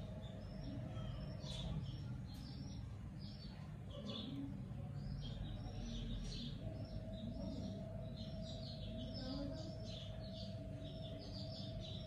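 Budgerigars chirping and chattering in quick, short high calls throughout, over a low background rumble; a faint steady hum comes in about halfway through.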